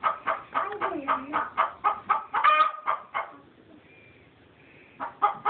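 A nesting hen clucking in a fast run of short calls, about four or five a second, with a louder drawn-out squawk about two and a half seconds in. The calls break off for under two seconds, then start again near the end.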